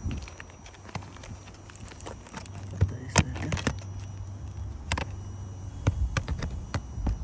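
Scattered knocks, taps and light crackles from hands and footsteps working on asphalt shingles, with louder knocks about three and five seconds in and a cluster near the end.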